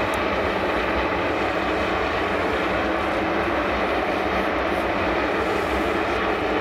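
Boeing 747-400 jumbo jet's engines running steadily at idle on the ground, an even rushing noise that does not change.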